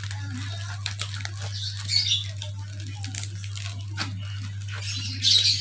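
Packaging being handled and torn open: scattered crackles and clicks, with two louder rustling tears, one about two seconds in and one near the end, over a steady low electrical hum.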